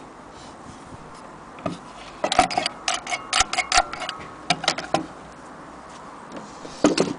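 Foot pedal of a vintage electric Frister and Rossmann sewing machine being handled and pressed by hand: a quick run of about a dozen sharp clicks and knocks, then one more clack near the end. No motor is heard running.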